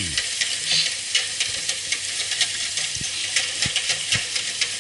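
Hot tap water running into a stainless steel pot while a metal utensil stirs powdered veal stock into it, with irregular clicks and a few knocks of the utensil against the pot.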